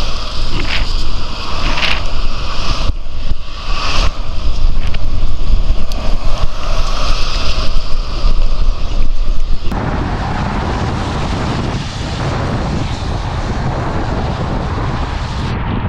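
Wind buffeting a body-worn camera's microphone, mixed with the tyre hiss of cars passing on a wet road. About ten seconds in, the sound changes abruptly to a steadier, duller rush.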